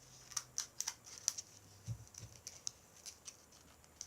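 Scissors snipping at the plastic packaging of a slime container: a series of short, sharp, irregular clicks, with a couple of soft knocks about two seconds in.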